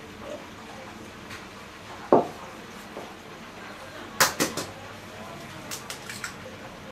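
Kitchen handling sounds: a dull knock about two seconds in, then a quick cluster of sharp clicks and knocks of kitchenware around four seconds in, with a few lighter clicks after.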